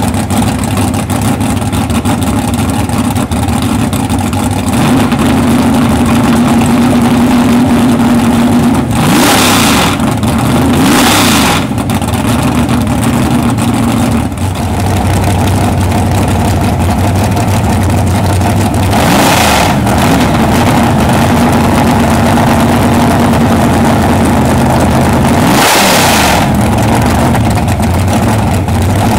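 Supercharged 541 cubic inch Hemi V8 with twin 1200 Dominator carburettors, running on an engine stand. It idles steadily, broken by four quick throttle blips that rise and fall in pitch: two close together about a third of the way in, one past halfway and one near the end.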